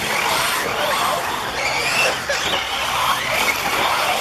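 Off-road RC buggies racing, their motors whining and gliding up and down in pitch as they speed up and slow down.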